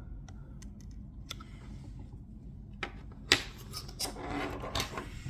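Small metallic clicks and rattles from a Master Lock padlock and its parts being handled, with one sharper click a little past halfway followed by about a second of scraping.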